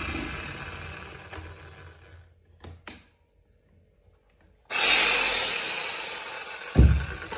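Electric demolition hammer with a 17 mm chisel bit running free and coasting down, a couple of clicks, then switched on again and coasting down once more. A heavy knock near the end as the chisel meets the board.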